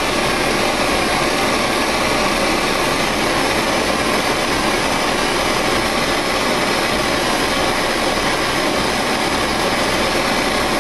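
Handheld gas torch burning with a steady, loud hiss of its flame.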